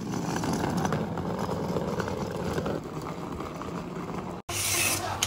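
Small wheels of a folding hand trolley rolling and rattling over paving tiles as it is pulled along. The sound cuts off abruptly about four and a half seconds in and is followed by a brighter hiss.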